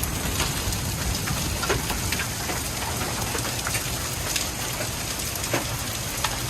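Heavy rain mixed with dime-sized hail pouring down, a steady hiss with scattered sharp clicks and knocks of individual hailstones striking hard surfaces.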